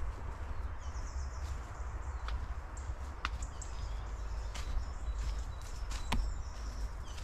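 Birds chirping faintly over a steady low rumble, with a few footsteps as sharp clicks at intervals.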